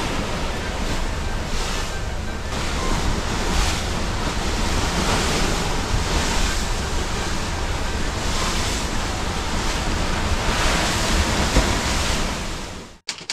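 Rough open-ocean waves and the ship's wake rushing and breaking alongside, in surges every second or two, under strong wind buffeting the microphone with a heavy rumble. It cuts off suddenly near the end.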